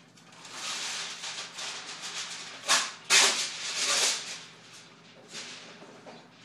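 Golden Retriever puppy biting and chewing the end of a garden hose, with water sputtering out of it in uneven hissing bursts, loudest a few seconds in.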